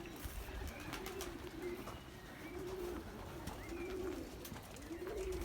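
Racing pigeons cooing: low coos that rise and fall, repeating about once a second, with scattered light clicks and knocks.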